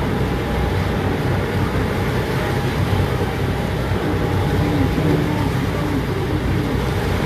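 Boat engine running steadily with a low drone, under a rush of wind and water.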